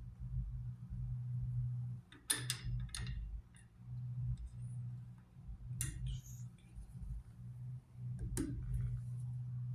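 A few sharp metal clicks and clinks as the plungers of a Mack power divider are handled and moved in their ring, over a steady low hum.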